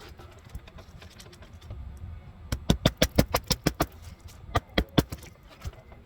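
A quick run of about ten sharp knocks, then three more a moment later, from work on brittle asphalt roof shingles, over wind rumble on the microphone.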